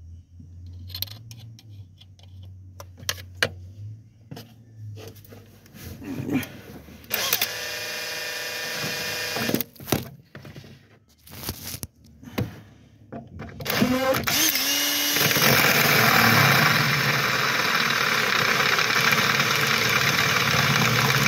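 Electric drill boring into a metal plate with an oiled bit. Handling clicks and knocks come first, then a short run of the drill about seven seconds in, then from about fourteen seconds a long steady run as the bit cuts into the metal.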